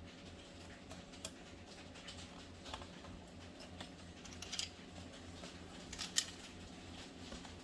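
A handful of faint, scattered clicks and taps of small tools and screws handled against a laptop's plastic case, over a low steady hum.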